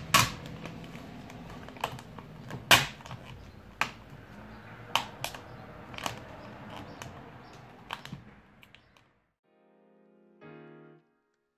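Vinyl wrap film crackling with irregular sharp clicks and snaps as hands stretch and press it over a plastic car grille. Near the end the crackling stops and soft piano music begins.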